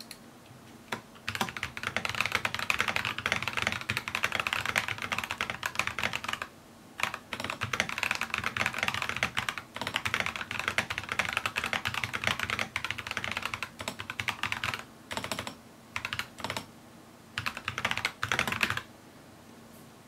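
Rapid typing on an NK65 Entry Edition mechanical keyboard with lubed Gazzew Boba U4T 62 g tactile switches and MT3 keycaps, a fast stream of keystrokes. There are brief pauses about six and a half and nine and a half seconds in, then short bursts of keystrokes near the end before the typing stops.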